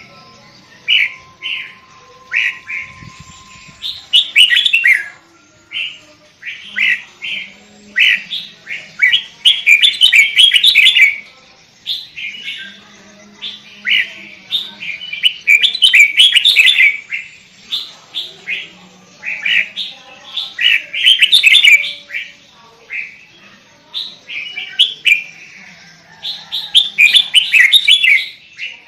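Sooty-headed bulbul in full, lively song: quick phrases of short chirping notes, one after another with brief pauses between them.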